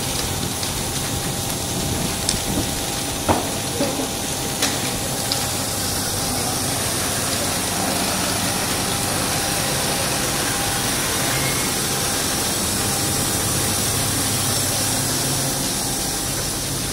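Fire engine running steadily at the scene of a fire, a low engine hum under a constant hiss, with a few sharp cracks between about two and five seconds in.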